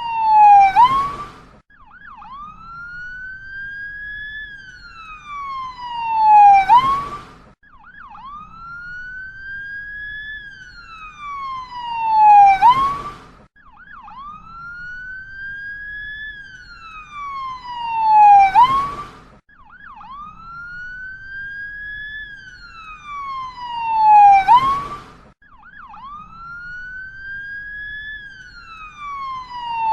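Ambulance siren wailing: the pitch rises slowly for about four seconds, then falls faster, the cycle repeating about every six seconds and loudest at the low end of each fall.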